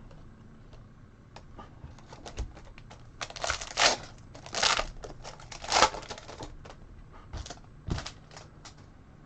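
Trading cards handled by hand and slid off one another while flipping through a pack: scattered light clicks, with three louder papery swishes a little past the middle.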